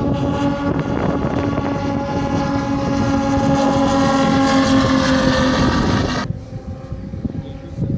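The twin Moki 400cc five-cylinder radial engines of a giant-scale RC B-25 Mitchell running in flight, a steady propeller drone whose pitch sinks slightly. About six seconds in, the sound drops suddenly to a fainter engine tone.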